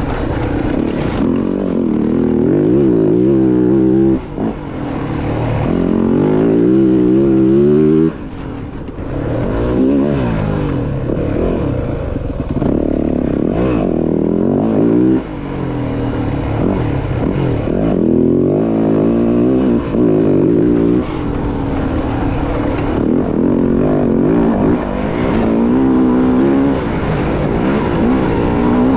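Dirt bike engine revving hard, its pitch climbing and dropping again and again as the throttle is worked, with short dips where the throttle is rolled off, about four and eight seconds in and again near the middle.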